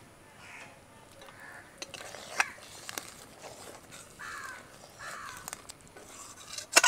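Crows cawing about four times, with a few sharp clicks of a spoon against the cooking pan, the loudest near the end.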